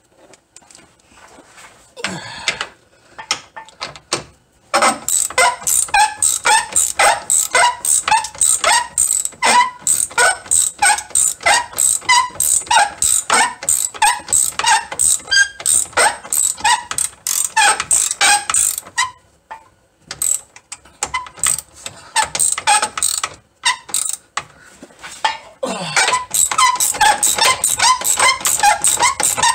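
Hand ratchet wrench clicking rapidly as it is swung back and forth on a spring mount bracket bolt. It comes in long runs of several clicks a second, with two short pauses.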